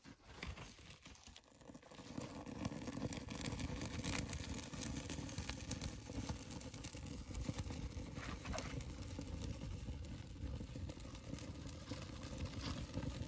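Kindling fire catching in the firebox of an antique cast-iron cook stove: burning tinder and twigs crackling. The crackling builds up over the first two seconds and then runs on dense and irregular, with a low rumble under it.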